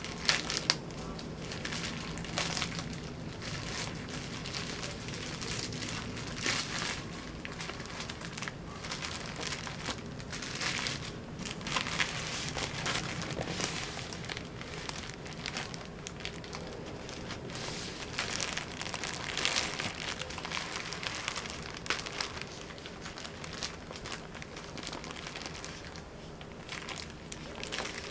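Plastic courier mailer and its packing tape crinkling and rustling in irregular bursts as the package is handled and opened.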